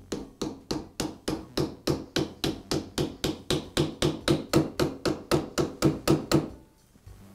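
Rubber mallet tapping the end of a DeWALT shear's armature shaft, driving the armature's bearing into the motor plate. Quick, even taps, about four or five a second, stop about a second before the end.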